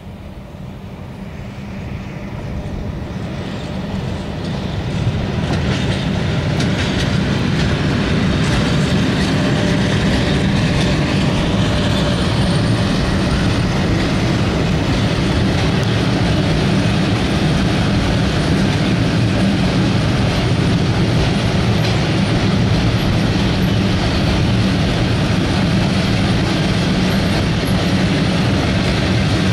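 ET22 electric locomotive hauling a freight train of covered wagons past at close range, its wheels clattering over the rail joints over a steady low rumble. The sound builds over the first several seconds as the train draws level, then holds loud and even as the wagons roll by.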